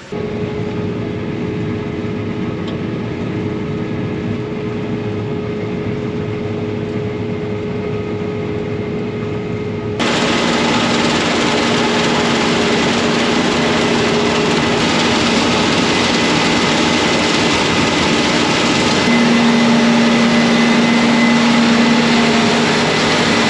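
Engine running steadily with a constant mechanical hum. About ten seconds in it turns abruptly louder and brighter, and it stays loud and steady after that.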